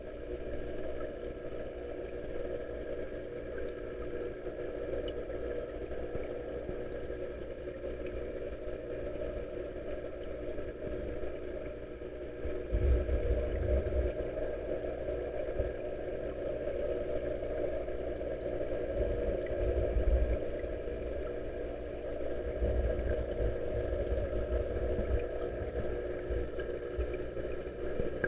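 Steady hum and rush of a koi pond's waterfall and its pump, with a few deep low rumbles about halfway through and again later.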